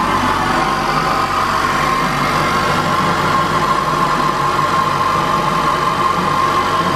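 Cadillac ATS 2.0-litre turbocharged four-cylinder engine, fitted with a ZZP cold air intake and throttle body, idling loudly and steadily just after a cold start.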